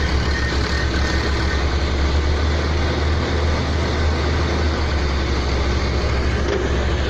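Pneumatic drilling rig running steadily: a heavy engine drone with a rapid low pulsing and a wide, even noise over it.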